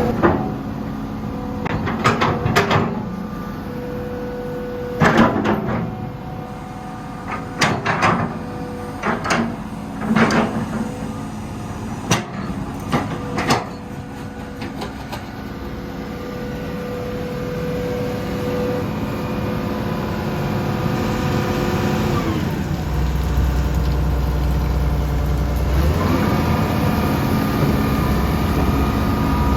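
Hitachi EX200-2 excavator's Isuzu 6BD1 six-cylinder diesel running as the machine is operated, with a series of sharp clunks through the first half. About two thirds of the way in, the engine slows with its pitch falling, then speeds back up a few seconds later.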